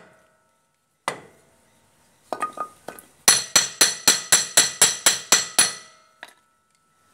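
Steel rear brake drum of a Bajaj three-wheeler being knocked while held on its hub. One blow comes about a second in, a few lighter ones follow, then a fast run of about eleven blows, four or five a second, each with a metallic ring.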